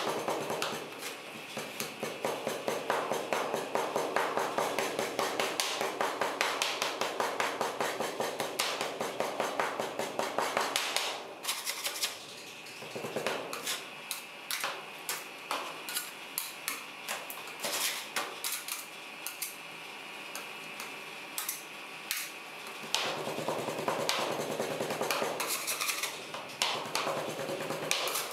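Two metal spatulas chopping and scraping on a frozen steel ice-cream pan, mixing chocolate wafer pieces into the ice cream base: a rapid run of metal clicks and clanks. The strikes thin out and grow quieter about halfway through, then pick up again near the end.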